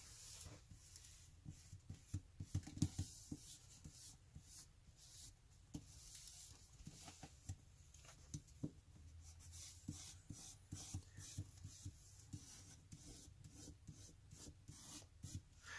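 Bone folder rubbed over a thin Bible page to press down document repair tape: faint scratchy strokes, with small scattered taps and paper rustles.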